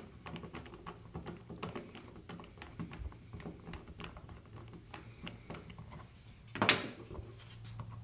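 Phillips screwdriver being turned by hand to drive a screw into an electrical outlet box, a run of small irregular clicks and scrapes. One louder knock comes near the end.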